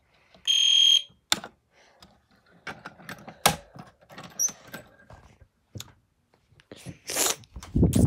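Fire alarm set off from a manual pull station, giving one shrill beep of about half a second near the start. After that it stays silent, and only scattered clicks and knocks of handling follow.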